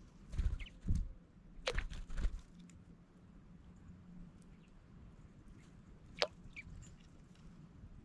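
Small sounds of an eastern bluebird on a concrete bird bath: a few sharp taps and clicks, the sharpest about two and six seconds in, with a couple of faint short chirps. Low rumbling bumps come and go in the first couple of seconds.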